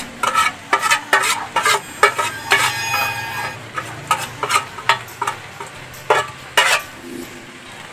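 A metal spatula scraping and knocking against a metal mixing bowl as minced fish filling is scraped out into a frying pan: repeated sharp clinks, with a brief metallic ring about three seconds in. The clinks thin out near the end, leaving a faint sizzle from the pan.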